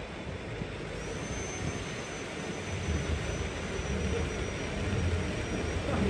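Lynton & Lynmouth Cliff Railway's water-balanced funicular car climbing away up the track: a steady rumble of cable and wheels on the rails. A thin high whine sets in about a second in and holds until near the end.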